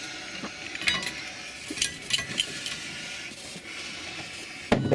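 Iron railway wagon coupling gear, with its links and chains, being handled by hand: a few sharp metallic clinks, then one heavy clank near the end.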